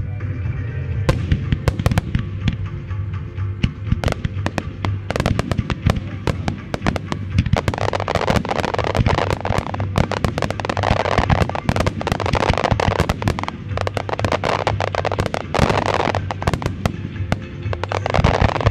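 Aerial firework shells bursting in rapid succession, the reports coming thicker with a dense crackle from about eight seconds in.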